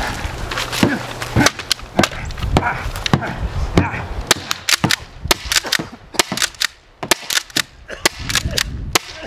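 Umarex T4E HDX, a CO2-powered .68-calibre less-lethal launcher, firing a rapid, irregular string of shots at a person.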